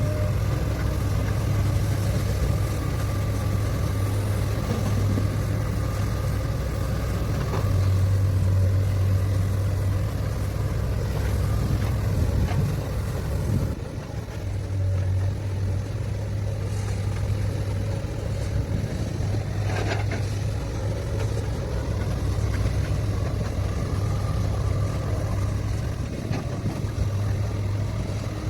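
Heavy diesel earthmoving machinery running with a steady low engine drone, its level shifting slightly as the machine works. The sound changes abruptly about halfway through, and there is a brief knock about 20 seconds in.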